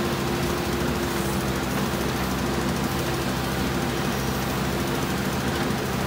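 Diesel engine of a JCB 3DX backhoe loader running steadily under working load while the backhoe arm moves the bucket, with a constant hum and a held higher tone over the engine note.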